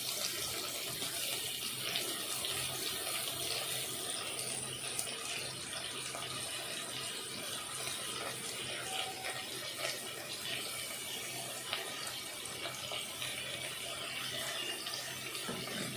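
Chopped onion and tomato sizzling in hot oil in a pan, a steady hiss with a few faint clicks.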